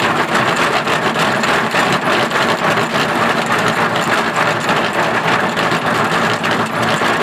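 Dog treadmill running steadily under a trotting Staffordshire bull terrier: a continuous mechanical running noise with fast, fine clicking throughout.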